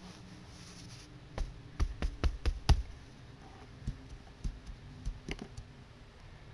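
Clicking on a laptop: a quick run of about six sharp clicks about a second and a half in, the last the loudest, then a few softer scattered clicks.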